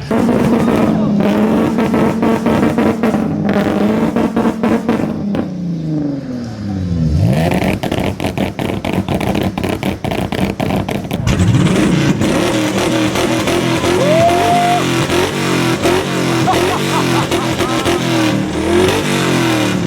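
Nissan Z sports car engine revved hard through its exhaust, the revs climbing and falling repeatedly. There is a deep drop and climb about seven seconds in, then a busy stretch of repeated revving in the second half, with sharp crackles throughout.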